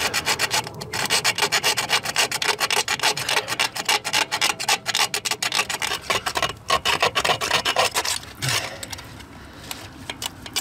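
Fast, rhythmic rasping strokes of a blade cutting through a car's heater hose tube, stopping a couple of seconds before the end.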